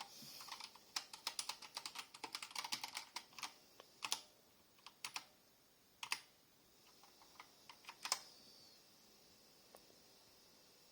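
Keys of a Spirit of Gamer mechanical keyboard with HyperX Pudding keycaps being pressed: a quick run of clacks, then single presses about a second apart, stopping about eight seconds in.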